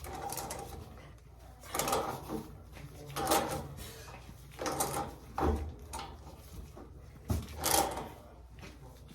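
Threaded black iron pipe fitting being turned tight with a pipe wrench: a series of short scraping strokes, about one every second and a half, with two dull knocks partway through.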